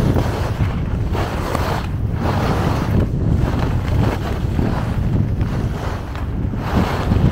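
Wind buffeting the microphone while skiing fast downhill, with the scrape of skis on packed snow swelling and fading with each turn, about once a second.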